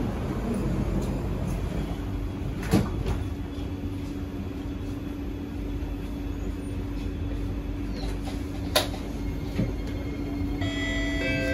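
Cabin noise of a Kawasaki–CSR Sifang C151B metro train moving off after its doors close: a steady low rumble with a steady hum, broken by two sharp clicks. Near the end an electronic chime of several tones starts.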